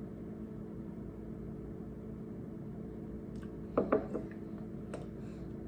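Steady low hum of room tone; about four seconds in, a short soft knock as a stemmed beer glass is set down on a table, followed by a faint click about a second later.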